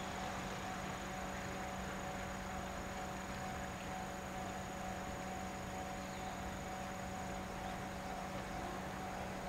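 Steady hum with a few constant tones over a hiss, with insects calling; no rhythm and no change throughout.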